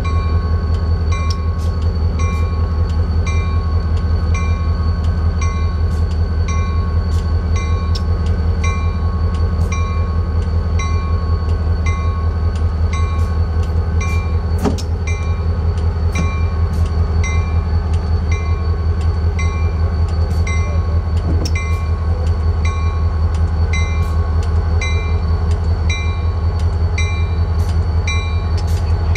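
Diesel locomotive engine idling with a heavy, steady low drone as it moves slowly, while its bell rings about once a second.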